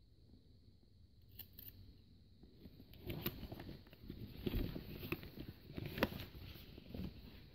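Rubber neck seal being stretched and handled with scissors at hand: a couple of faint snips, then from about three seconds in an uneven rustling and crackling of the rubber as the trimmed strip is pulled away.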